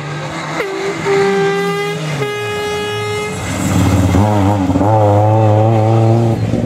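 Škoda Fabia rally car's engine dropping in pitch as it slows into a hairpin, then revving hard and wavering as it accelerates out. A separate steady high tone starts sharply about half a second in and holds for about three seconds.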